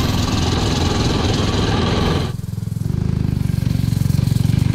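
Tillotson 225 single-cylinder engine in a converted motorcycle running under way. At first it is heard along with wind rushing over the rider's microphone. About two seconds in the wind drops away and the engine's steady exhaust beat comes through on its own, getting louder as the bike passes.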